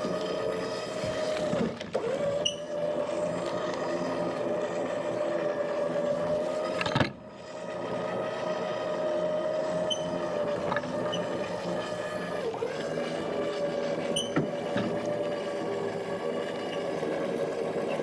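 An engine running steadily at one pitch, with a brief dip in level about seven seconds in and a few small wavers in pitch.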